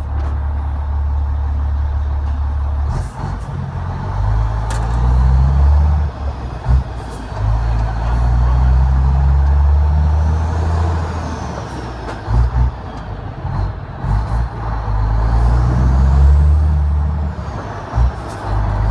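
Renault Magnum 440's Mack E7-based E-Tech diesel pulling a truck up through the gears of a manual ZF 16S gearbox: the engine drone builds and cuts out briefly at each of several shifts, with the turbo whistle rising high above it.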